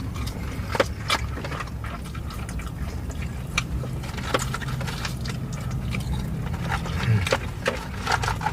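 Close-up chewing and wet mouth sounds of someone eating: many short smacking clicks, irregularly spaced, over a steady low hum.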